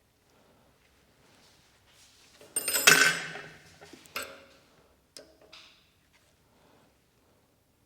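Metal lathe parts and tools clattering against each other about two and a half seconds in, with a brief metallic ringing, followed by two light clinks.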